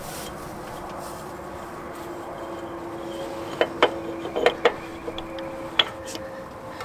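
Metal clicks and knocks of a John Deere 6125 tractor's reversible PTO stub shaft being worked by hand back into its splined rear housing, which is binding and not sliding in easily. A run of sharp clicks comes in the middle, with a lighter click a little later.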